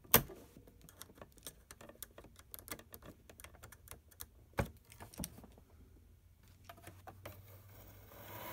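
Small flathead screwdriver tip clicking and scraping against a steel E-clip and the metal frame of a printer mechanism while the clip is pressed onto the guide bar end: faint, irregular light clicks with a few sharper ones, one at the start and one past halfway. Soft rubbing near the end.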